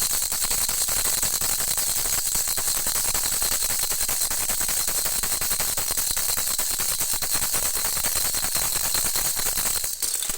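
Baby rattle with three bells shaken rapidly and continuously, a dense jingling rattle, with a short break near the end.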